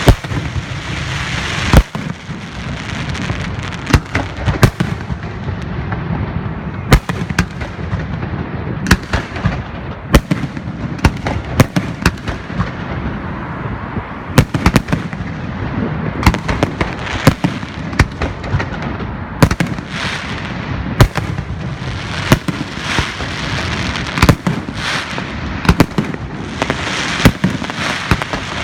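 Aerial fireworks going off in a continuous barrage: sharp bangs about once or twice a second over a steady crackling hiss and low rumble.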